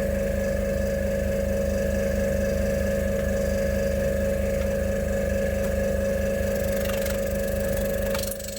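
A motor running at a steady speed: a constant droning hum with a fast low pulsing underneath, which drops in level shortly before the end.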